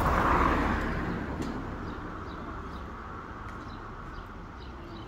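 A vehicle passing on the street, loudest in the first second and fading away, leaving steady outdoor traffic background.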